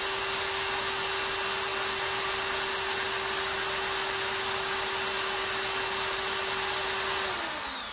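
Ridgid drill running at a steady speed with a constant whine, spinning a brushless RC helicopter motor so that it works as a generator to test its phases. Near the end the trigger is let go and the whine falls in pitch as it spins down.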